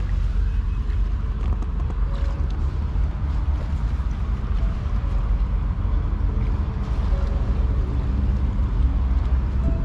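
Wind buffeting the microphone: a steady, irregular low rumble.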